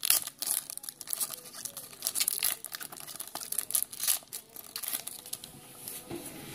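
A trading card pack's wrapper being torn open and crinkled by hand, in irregular crackles and rips.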